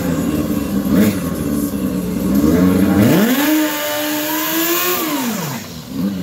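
Turbocharged Yamaha four-stroke drag snowmobile engine running with a quick blip, then revving up sharply about halfway through, holding high for about two seconds, and dropping back off near the end.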